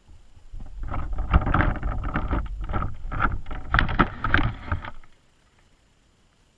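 Muffled underwater sloshing and knocking, heard through a GoPro's waterproof housing as the wire crab trap holding it is jostled, with repeated knocks over deep water rumble; it starts about half a second in and stops abruptly about five seconds in.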